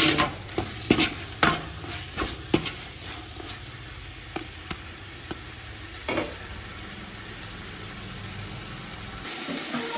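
Metal spoon stirring and scraping tomatoes, onions and green chillies frying in oil in a large aluminium pot, knocking against the pot several times, over a steady sizzle. The knocks thin out and stop about six seconds in, leaving the sizzle.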